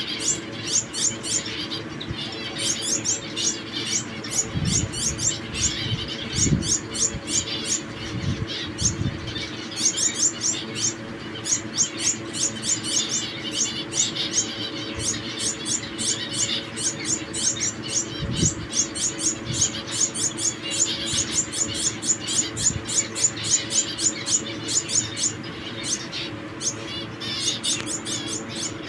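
Zebra finches and Gouldian finches in an aviary calling: a dense stream of short, high chirps, several a second, over a steady low hum. A few low thuds fall in the first third and once more past the middle.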